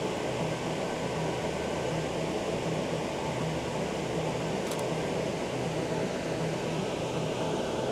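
Steady, unbroken rushing noise, with a faint click a little before five seconds in.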